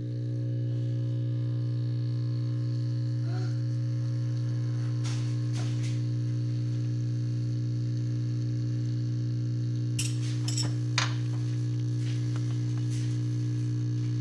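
Sharp SG-618 surface grinder's electric motor coming up to speed and then running with a steady, even hum. The machine is being run to pump oil through its newly replaced lube lines. A few light clicks and knocks sound about five seconds in and again around ten to eleven seconds in.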